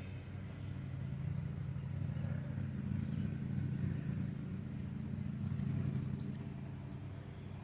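A motor vehicle's engine running steadily, a low rumble that swells a little in the middle and eases off near the end.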